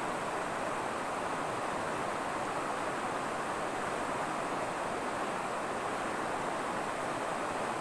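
Fast-flowing river water rushing over stones, a steady, unbroken hiss.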